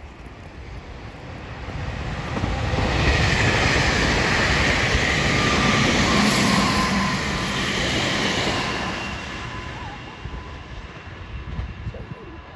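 Meitetsu electric train passing at speed. It builds over about three seconds, stays loud for several seconds with a whine from the motors and wheels, then fades away.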